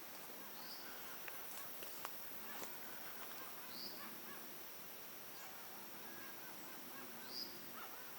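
An unidentified animal's short, high chirp, three times about three seconds apart, over a faint steady high tone.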